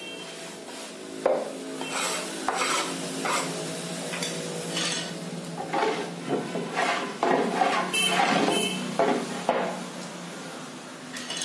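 Hands brushing and sweeping wood shavings off a glued-up wooden panel in quick, uneven rubbing strokes. A few wooden knocks come as the board is tipped up and set back down on the concrete floor.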